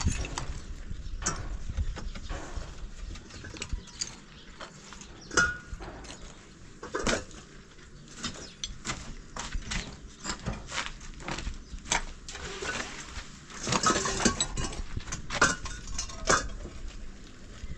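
Irregular knocks and clinks of hard objects being struck and handled, with a denser, louder cluster near the end.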